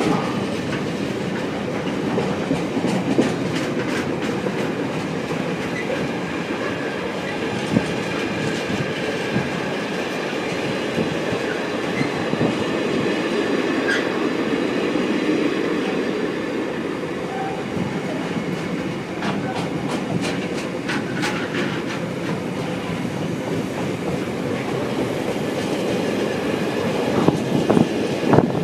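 Container freight train's wagons rolling past: a steady rumble of wheels on rails with scattered sharp clicks as the wheels run over the track.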